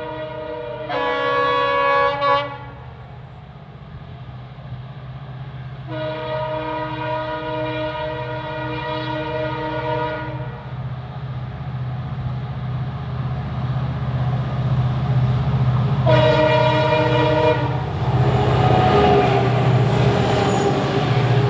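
Twin WDG4 diesel-electric locomotives, driven by EMD two-stroke engines, approaching with a steady low engine drone that grows louder. The horn sounds three times: a two-note blast that shifts pitch about a second in, a long blast of about four seconds starting about six seconds in, and a shorter blast about sixteen seconds in. Near the end the locomotives pass close with loud engine and wheel noise.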